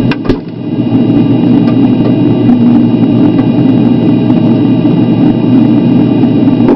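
Refrigerator running with a loud, steady mechanical hum carrying several steady tones, with a couple of short knocks at the very start.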